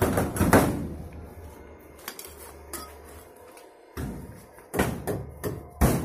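Metal folding garage door clattering and banging as its sheet-metal panels are moved. From about four seconds in, music with a drum beat takes over.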